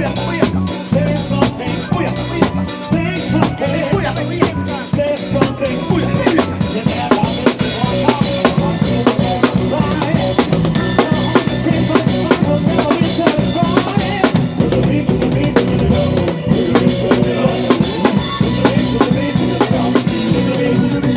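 Live band playing, with a drum kit to the fore: steady kick drum, snare and rimshot hits over a moving bass line and other instruments.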